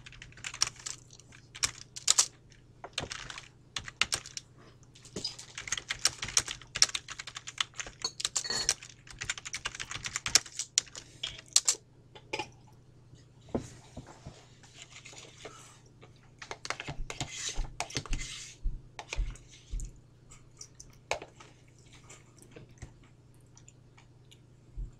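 Bursts of typing on a computer keyboard: quick runs of clicks with pauses between them, over a faint steady low hum.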